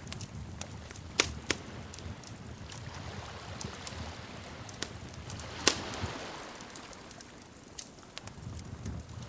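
Wood fire crackling in a fireplace: scattered sharp pops and snaps over a low steady rumble. Two loud pops come about a second in, and the loudest comes near the middle.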